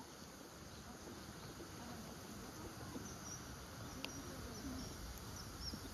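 Outdoor park ambience with a steady low rumble and a few short, high bird chirps in the second half, plus a single sharp click about four seconds in.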